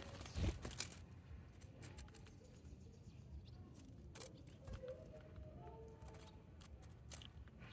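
Small birds at a backyard feeder: scattered quick clicks and taps of feeding, a louder thump about half a second in, and a few short, faint calls.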